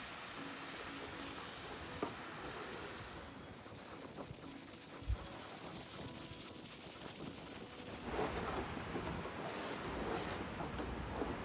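Snowstorm wind blowing across the microphone: a steady hiss and rush that grows a little louder near the end, with a faint click and a short low thump partway through.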